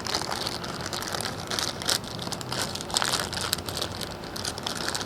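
Hands handling plastic gas can parts: irregular crinkling rustle with many small clicks and taps.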